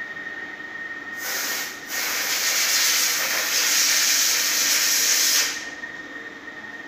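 Catheter tip processing machine letting out a loud hiss of air for about four seconds, with a brief break near its start, then cutting off sharply. A faint, steady high whine runs underneath.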